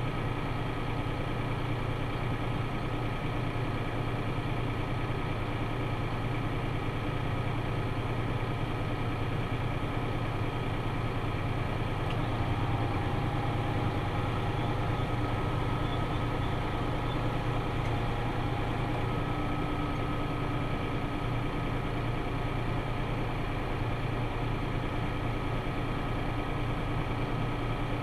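Farm tractor engine running steadily, with faint steady whining tones on top.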